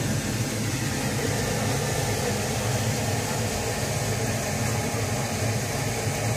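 A steady mechanical hum with a hiss over it.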